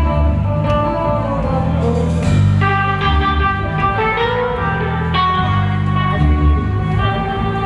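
Dub band playing: electric guitar lines over a loud, repeating bass line of held notes.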